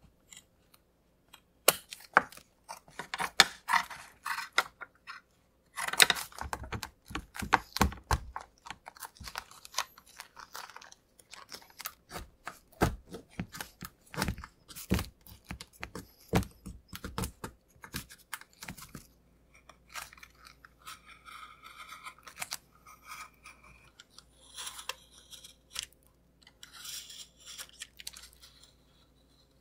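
Steel tailor's shears snipping through prepreg carbon fiber cloth: a long run of crisp cuts and crinkles. Later, over a low steady hum, softer peeling and tearing noises.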